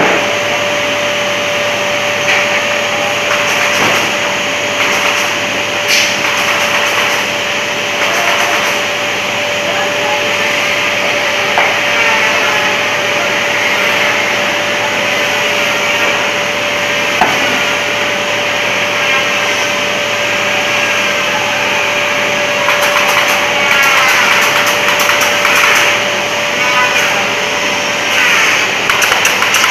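Steady hum of running factory machinery on a door-panel laminating line, with one constant mid-pitched tone. A few short wooden knocks come as door frames and veneer skins are laid onto the roller table.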